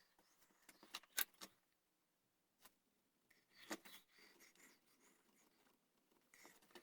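Faint clicks and a knock from hand carving tools at work on a wooden gunstock: a quick run of three clicks about a second in, a single click, then a louder knock with a short scraping pass, and more brief scraping near the end.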